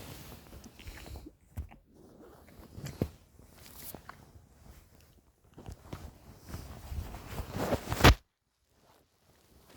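Bedding rustling with scattered clicks as a sleeper shifts about, building to a loud rustle about eight seconds in that cuts off suddenly.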